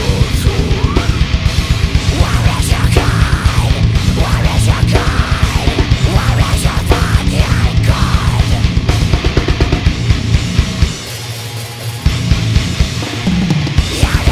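Raw, unmixed multitrack playback of a deathcore band recorded live with no click: heavily distorted guitars, rapid pounding kick drum and harsh vocals, with no mix processing. The low end drops out briefly about eleven seconds in, then the full band comes back.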